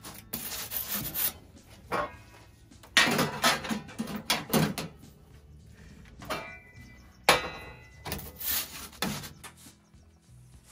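Metal pizza peel and sticks of firewood being handled at a stainless-steel Uuni portable wood-fired pizza oven: scraping and rubbing in several spells, with two sharp knocks about three and seven seconds in.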